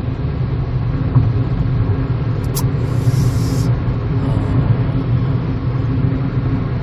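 Steady low rumble of engine and road noise inside a Kia Morning city car's cabin, cruising at expressway speed. A brief faint high hiss a little past halfway.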